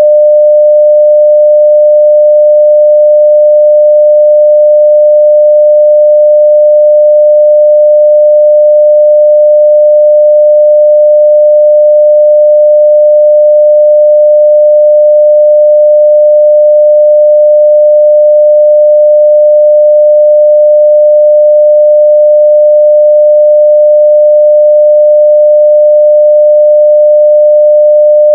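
Continuous 600 Hz sine-wave test tone at full level, one steady pure pitch that does not change.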